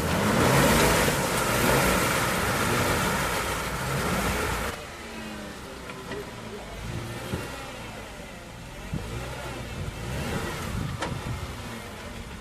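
Jeep JK Wrangler engine revving hard under load as it climbs a rock ledge, loudest for the first four or five seconds, then settling to lower, uneven revs with the pitch rising and falling.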